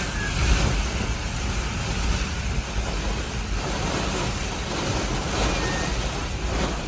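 Hurricane eyewall winds blowing hard, a dense rushing noise with a heavy, uneven low rumble from the gusts.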